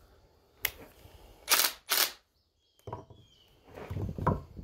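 Wooden 2x4 pieces being handled and flipped over: a light click, then two sharp, short wooden clatters about half a second apart, and a few duller thumps of wood being set down near the end.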